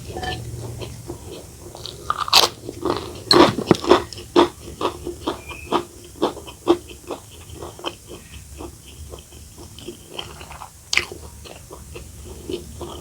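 Close-up eating: a person biting and chewing crunchy food, with a few loud crunches in the first four seconds, then a steady run of smaller chewing crunches.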